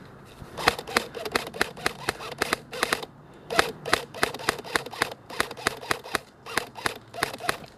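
Airsoft rifle firing rapid single shots, about four or five sharp clicks a second, in two strings with a short pause about three seconds in.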